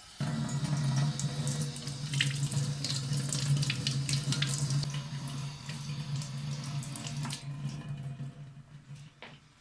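Tap water switched on and running into a sink, with a steady low hum and irregular splashing as the dishwasher's filter parts are rinsed under it. The flow eases off near the end.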